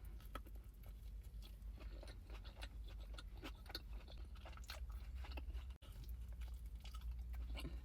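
Quiet close-miked chewing of a chicken quesadilla: a string of soft, irregular wet clicks and crunches over a low steady hum.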